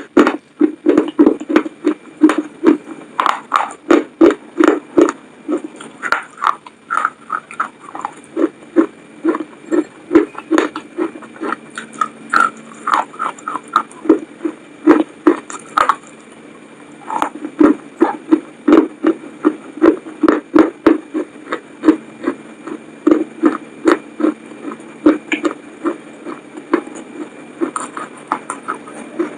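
Close-up chewing of McDonald's french fries: rhythmic wet chews about two or three a second, with crisp crunches and mouth clicks, and a short pause partway through.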